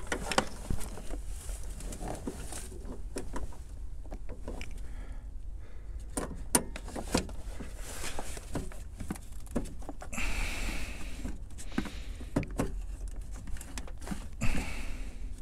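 Gloved hands fitting an LED headlight bulb into the back of a headlight housing: scattered plastic clicks and knocks, with a couple of short rustling scrapes.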